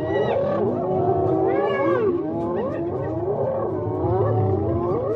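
A pack of spotted hyenas calling together: many overlapping yelping, giggling cries that rise and fall in pitch, over a low rumble.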